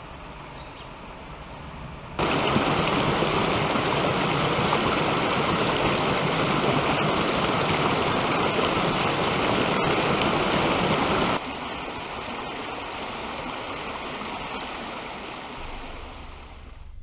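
Creek water rushing over rock ledges in a small cascade: a steady, loud rush that cuts in abruptly about two seconds in. About eleven seconds in it drops suddenly to the softer flow of shallow water over rock, fading near the end.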